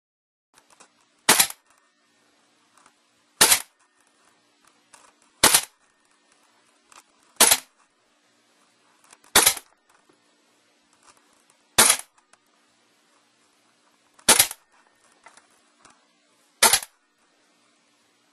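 WE SCAR-L gas blowback airsoft rifle firing single shots, eight in all about two seconds apart, each a sharp crack with the bolt cycling, with faint clicks between shots.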